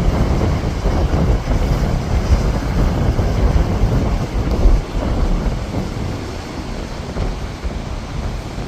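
Strong wind buffeting the microphone in gusts, a low, uneven rumble that eases slightly after about five seconds.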